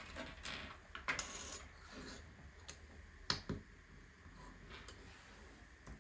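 Small plastic LEGO pieces being handled and pressed together: light rattling and several sharp clicks, the loudest a little past the middle.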